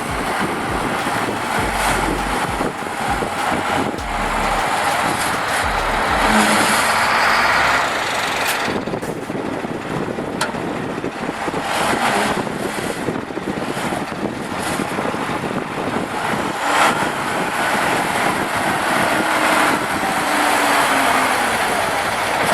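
Continuous motor-vehicle engine noise, steady with small swells in level.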